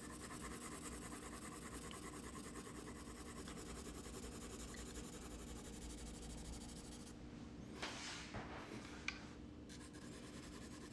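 4B graphite pencil shading lightly across sulphite paper, a soft, steady scratching. Near the end come a couple of louder strokes and a short tick.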